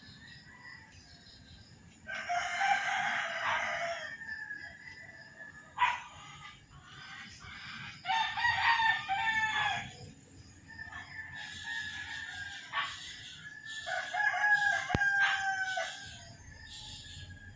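Roosters crowing: three loud crows about six seconds apart, each lasting about two seconds, with fainter calls in between.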